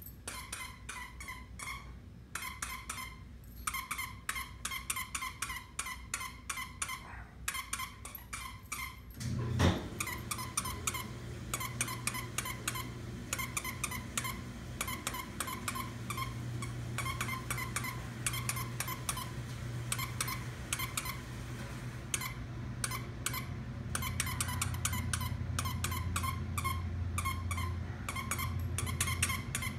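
A hedgehog squeak toy squeaked over and over in quick runs as a small dog chews it, with a few short pauses. About a third of the way in, a low steady hum starts under the squeaking.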